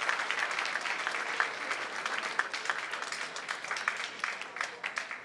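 Audience applauding: many hands clapping densely, thinning out toward the end.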